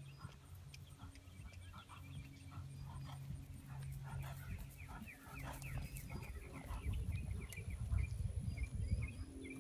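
Birds calling outdoors in many short chirps and clucks, over wind rumbling on the microphone that grows stronger in the second half.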